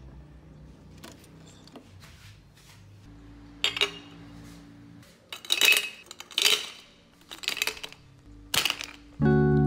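Ice cubes clinking and knocking against a small glass as they are forced into it, about five sharp clinks spread over the second half. Music starts near the end.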